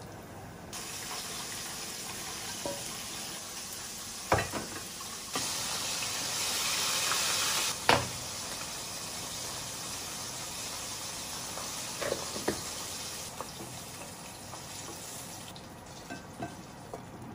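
Coated chicken pieces deep-frying in a pan of hot oil: a steady sizzle that starts just under a second in and swells louder for a couple of seconds around the middle. Several sharp clicks come through it, from metal tongs and a wire-mesh strainer knocking against the pan.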